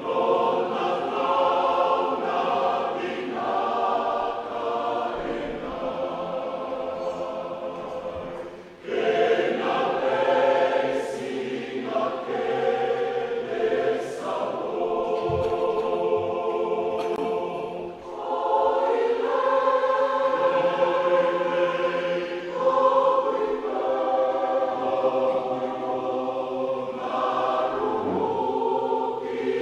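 A choir singing in long held phrases, with brief breaks between phrases about nine and eighteen seconds in.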